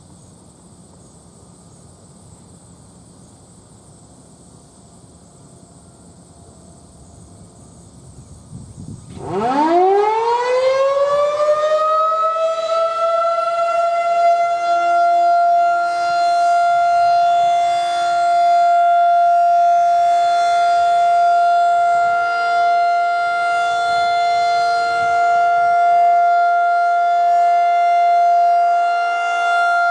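Federal Signal 2001 rotating outdoor warning siren winding up about nine seconds in, its pitch rising quickly and then holding a steady tone with a gently wavering level, sounding for its monthly test.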